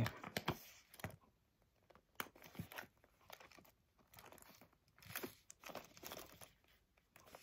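Faint handling noises of a small quilted leather clutch on a chain strap being turned and tilted in the hands: scattered light clicks and rustles.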